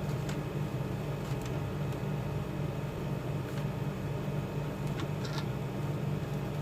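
Steady low mechanical hum, with a few faint ticks scattered through it.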